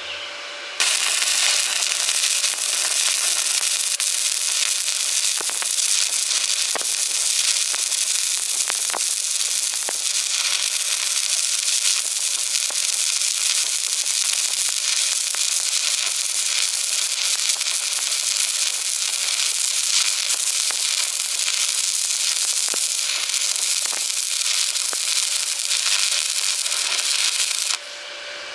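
An electric welding arc crackling and sizzling steadily through one long continuous bead. It strikes suddenly about a second in and breaks off just before the end, with a steady machine hum on either side.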